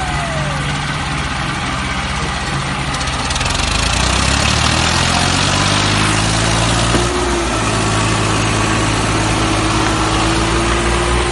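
Engine running steadily. Its low hum gets louder and shifts in pitch about three to four seconds in, and a thin steady tone runs over it in the second half.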